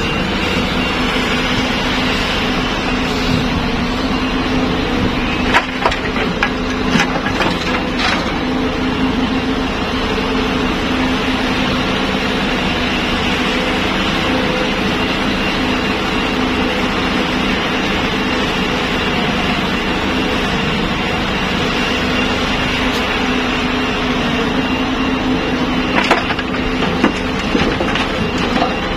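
Cat 320B hydraulic excavator's diesel engine running steadily under work, with a few sharp knocks about six to eight seconds in and again near the end.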